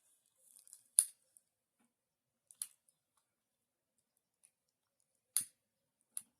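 Handheld lighter being clicked to shrink heat-shrink tubing over a soldered wire joint: four short, sharp clicks, about a second in, at two and a half seconds, and a close pair near the end.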